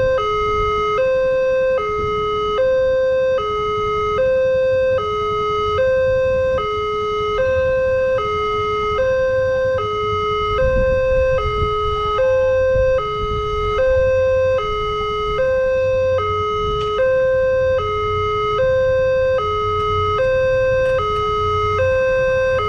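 Electronic Multec railway level-crossing siren sounding its two-tone warning, switching steadily between a higher and a lower tone with a full high-low cycle about every one and a half seconds, the signal that a train is approaching the crossing. A low rumble runs underneath.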